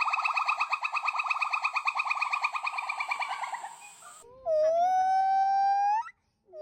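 Monkey calls: a rapid, high chattering trill, about a dozen pulses a second, that fades out after about three and a half seconds. Then comes a long, steady, whistle-like call that rises in pitch at its end, with another call starting just at the close.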